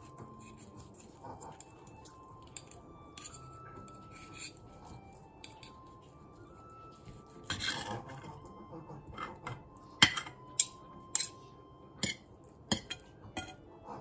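Metal fork clinking and scraping against a porcelain plate of meat, a run of sharp clicks in the second half, over faint background music.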